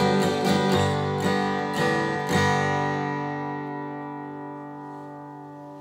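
Acoustic guitar strummed for about two and a half seconds, then a final chord left to ring out and slowly fade, closing the song.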